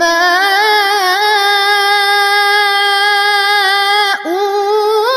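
A boy reciting the Quran in melodic tajwid chant. He holds the drawn-out vowel of 'wa-mā' on one long note with small turns in pitch, breaks briefly about four seconds in, then goes on a step higher. This is the long lengthening of a vowel before a hamza that marks the Warsh reading.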